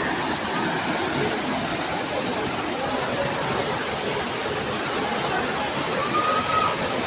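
Steady rushing of a large waterfall, an even wash of falling water with no breaks.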